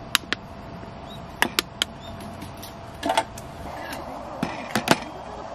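Several short, sharp clicks and knocks in small clusters: objects, an emptied beer can and a phone, being handled and set down on a wooden camp table.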